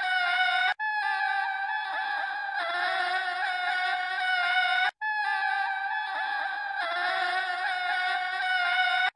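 A looped recording of many overlapping animal calls, wavering in pitch, cutting out for a moment and restarting about every four seconds.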